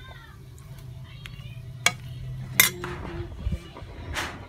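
A spoon clinking and scraping against cookware while cooked macaroni is mixed, with two sharp clinks in the middle and a steady low hum underneath.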